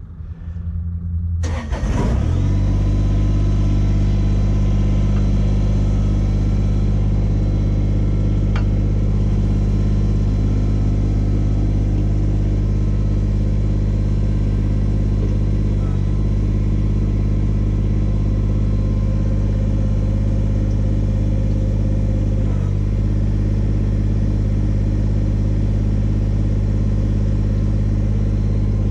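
Kubota BX25D tractor's three-cylinder diesel engine starting about two seconds in, then running steadily.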